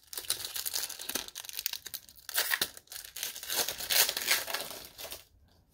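Foil Pokémon booster pack wrapper being torn open and crinkled by hand. The crackly tearing comes in uneven bursts, loudest about two and a half and four seconds in, and stops shortly before the end.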